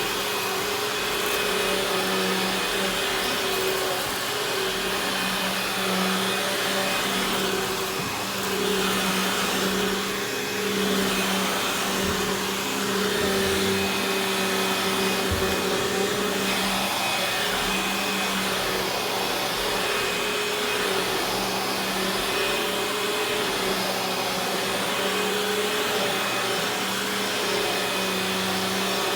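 Eureka Boss Victory upright vacuum cleaner running on carpet, its motor giving a steady hum and rushing hiss with slight rises and falls in level as it is pushed back and forth.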